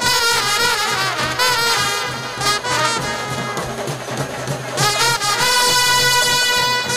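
Music led by brass instruments: a wavering melody, then long held notes from about five seconds in.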